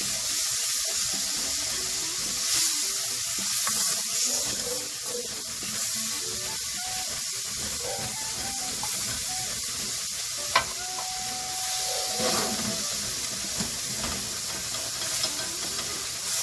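Onions and garlic sizzling and steaming in a pan over high heat, with a splash of water cooking off to loosen the browned bits from the pan. A sharp click comes about ten and a half seconds in.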